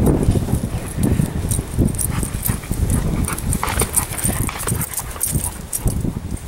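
Hunting dog working through field cover close by, with rustling brush and footsteps over a low rumble on the microphone.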